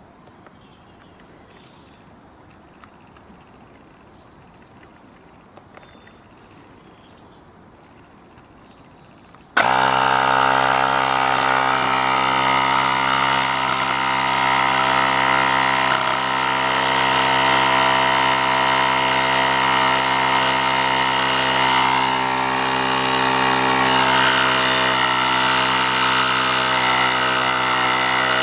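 Cordless portable tyre inflator starting up suddenly about ten seconds in, then running steadily: the small electric motor and piston compressor give a loud, even buzz.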